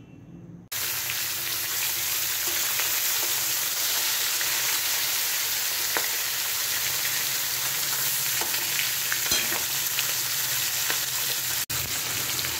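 Katla fish head frying in hot oil in a metal wok: a steady, dense sizzle with scattered spattering pops, starting suddenly under a second in and breaking off for an instant near the end.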